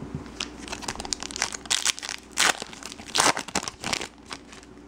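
Plastic-foil wrapper of a Topps baseball card pack crinkling and tearing as hands pull it open: a quick, uneven run of sharp crackles, loudest in the middle.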